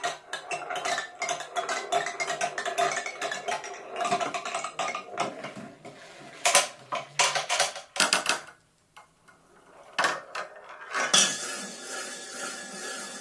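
Marbles running through a homemade sound-making marble run of recycled objects: a dense patter of clicks and clinks on metal and plastic, then a few separate strikes and a short pause. Near the end a steady droning tone with hiss starts.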